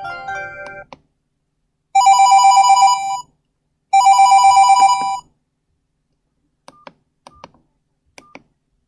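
Medion M5511 mobile phone playing a ringtone through its speaker: two loud rings of a rapid warbling telephone-style trill, each lasting about a second and a half, with a short gap between them. Before them the last notes of a melodic tone end about a second in, and a few faint short clicks follow near the end.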